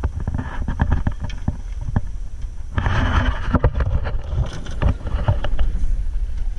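Rumble of wind and handling on the microphone, with a rapid string of knocks and clunks against the small rowboat as the camera and gear are jostled; the rubbing is loudest about three seconds in.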